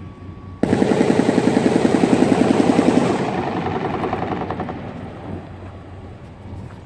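M134 minigun firing one sustained burst of about two and a half seconds: a loud, rapid buzzing stream of shots that starts abruptly, cuts off, and dies away over a couple of seconds.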